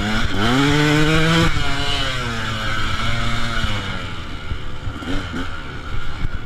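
Dirt bike engine under throttle. The revs climb steeply in the first second and hold high, drop off, then run lower and steadier, with short rises and falls of the throttle near the end.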